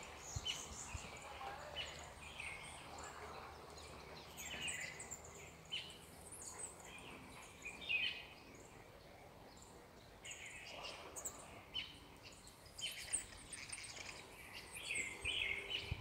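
Small birds chirping: many short, high chirps and twitters, scattered and overlapping, over a faint steady background.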